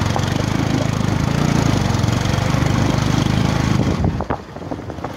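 A small engine running with a fast, even beat, which stops about four seconds in; a few clicks and knocks follow.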